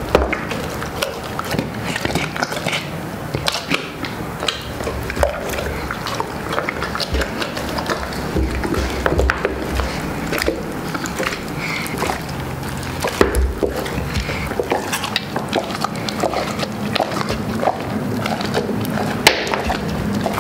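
A large dog chewing and crunching through whole roast chickens, with wet smacking of its jaws and many irregular cracks and crackles as the meat and bones break.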